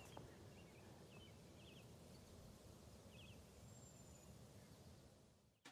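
Near silence: faint outdoor background with a few soft, short bird chirps; it fades out just before the end.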